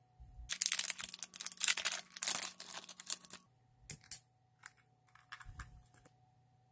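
Hands handling a plastic blush compact, with rapid clicking and scratchy tapping for about three seconds, then a few separate clicks as a small metal keyring and acrylic charm are fitted to it.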